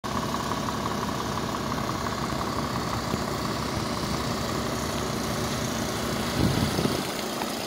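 A vehicle engine idling steadily, with a short, louder low rumble near the end.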